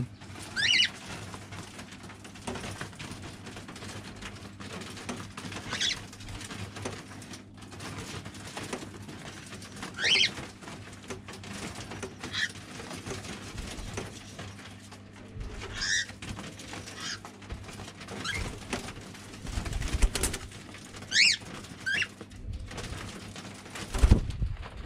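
Cockatiels giving short rising whistled calls, one every few seconds. A few low thumps come later on, the loudest near the end.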